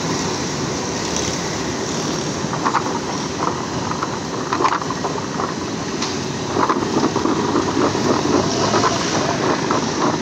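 Steady street traffic noise, with light, irregular rustling and clattering of cut raw potato sticks being tossed by hand in a plastic tub, more frequent in the second half.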